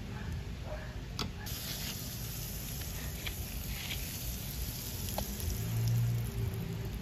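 Waffle batter sizzling on the hot plates of a mini electric waffle maker: a high, steady hiss that starts suddenly about a second and a half in. Just before it comes a sharp click, as of metal tongs against the plate.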